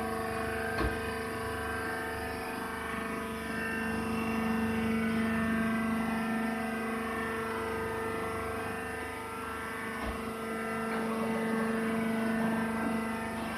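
Wood chips baling machine running with a steady mechanical drone, a short knock coming about a second in and another near the end.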